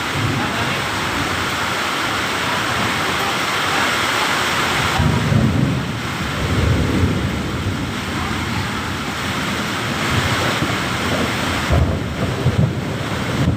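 Heavy rain pouring steadily in a thunderstorm, with low rumbles of thunder swelling about five seconds in and again near the end.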